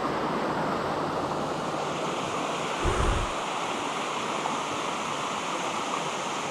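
Fast-moving creek water rushing steadily, with a brief low thump about three seconds in.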